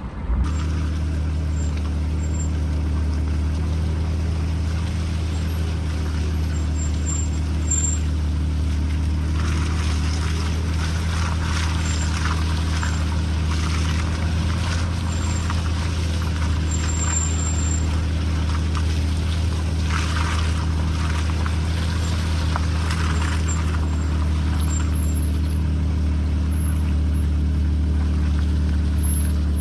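An engine running at a steady speed, a constant low hum, with stretches of hissy rattling noise partway through.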